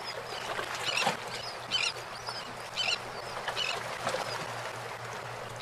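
Waterside outdoor ambience: a steady wash with a faint low hum underneath, and short bird calls repeating roughly once a second.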